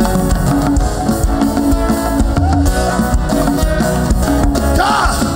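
Live gospel band playing an instrumental passage of a worship song: bass, guitar and drum kit with a steady beat, a voice coming in near the end.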